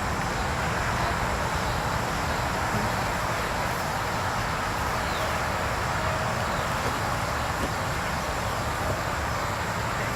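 Steady outdoor background noise: a low rumble under an even hiss, unchanging throughout.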